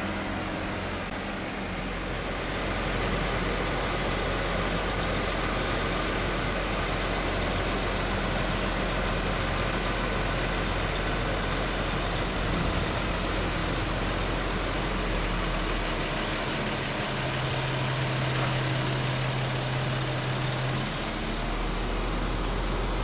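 Brandt road-rail truck's diesel engine running as it hauls a work train of gondolas past, with a steady rumble of the train rolling on the rails. It gets louder about two seconds in, and a low steady hum comes in for a few seconds near the end.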